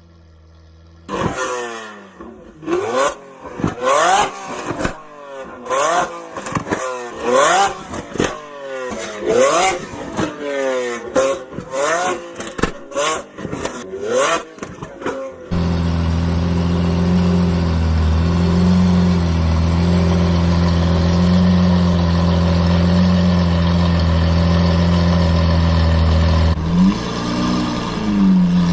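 Lamborghini Aventador LP700-4's V12 engine revved again and again in quick rising bursts, with sharp cracks as each rev falls away, about one a second. After about fifteen seconds it settles into a steady deep drone, which wavers up and down near the end.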